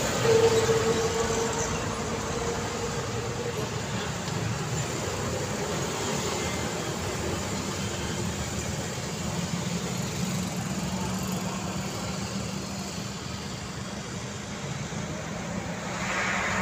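Road traffic: small motorcycles passing close by, their engine note loudest just after the start and dying away within a few seconds, leaving a steady hum of traffic that swells again slightly near the end.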